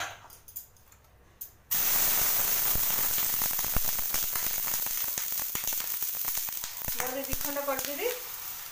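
Water sprinkled on a hot dosa tawa sizzling. The sizzle comes on suddenly about two seconds in and fades slowly. This is the hot griddle being dampened before the next dosa's batter is poured.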